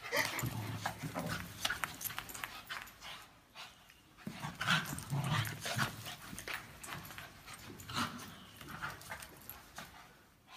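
Two small dogs, a shih tzu and a black curly-coated dog, play-fighting on sand, with irregular bursts of dog vocalising and scuffling. The busiest bursts come in the first second or so and again around the middle, easing off near the end.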